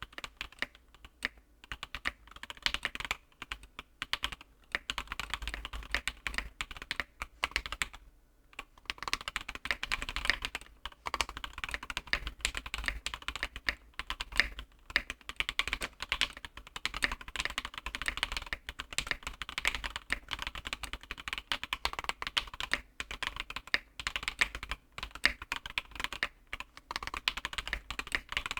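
Typing on a custom mechanical keyboard, a Monokei KFE CE with a polycarbonate plate, PBT keycaps and Alpaca linear switches that are lubed, filmed and fitted with 65 g springs. Fast runs of keystrokes with short pauses, the longest about 8 seconds in.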